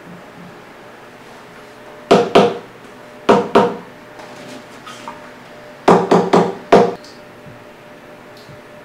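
Sharp knocks at a workbench: a quick pair, another pair a second later, then a run of four.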